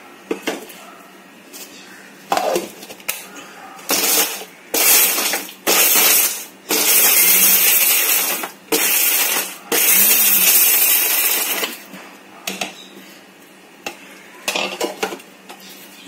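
Indian mixer grinder with a steel dry-grinding jar run in short pulses, about six bursts of a second or two each, grinding hard whole dry spices such as dry ginger into a coarse powder. Clicks and knocks of the jar being set in place come first, and a few more knocks come near the end.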